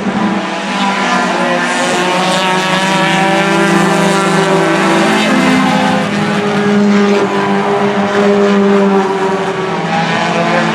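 A pack of four-cylinder race cars running hard together, several engines at high revs at once with their pitches overlapping and shifting as they come past.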